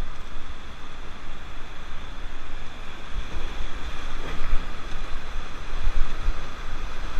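Rushing whitewater of a river rapid around a raft, with wind buffeting the microphone in gusts, strongest in the middle.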